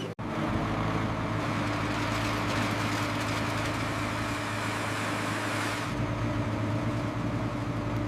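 A heavy machine's engine running steadily, with a hiss over it that fades out about six seconds in.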